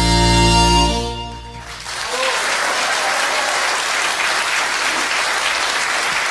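Harmonicas, including a large Hohner harmonica with a deep low end, hold a final chord that cuts off about a second in. After a brief lull, an audience applauds steadily.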